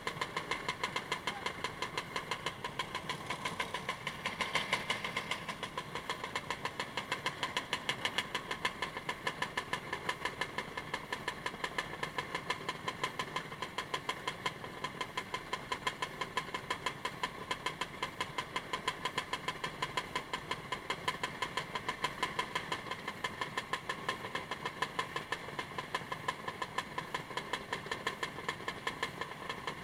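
Motorcycle engine idling, an even beat of about three or four pulses a second that keeps steady throughout.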